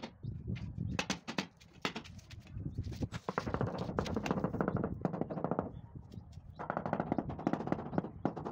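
Small hand hammer striking repeatedly at the base of a plastered wall: a string of sharp taps, running into quick rattling runs in the middle and again near the end.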